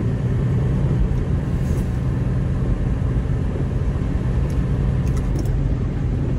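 Steady low rumble of a semi-truck's engine and road noise.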